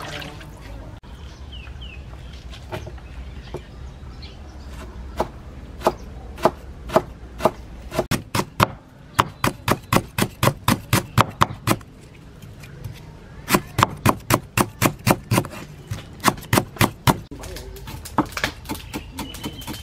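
A cleaver chopping lemongrass stalks on a wooden chopping board: quick, regular knocks of the blade on the board, about three a second, in two runs with a short break between them.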